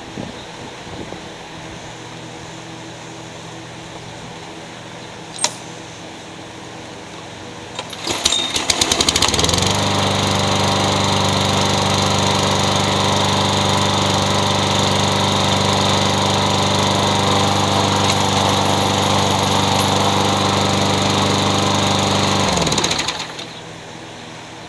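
Walk-behind lawn mower's small single-cylinder engine being pull-started. It catches after a second or so of cranking, runs steadily at its set speed for about 13 seconds, then is shut off and winds down.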